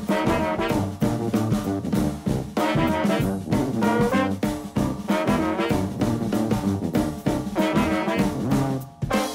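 Background music: an upbeat jazzy tune led by brass over drums, with a steady beat.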